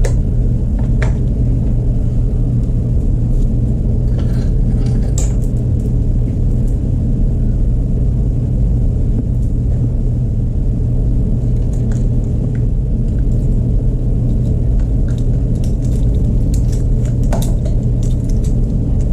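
Steady low rumble from a running machine, with a few light clicks and knocks of handling.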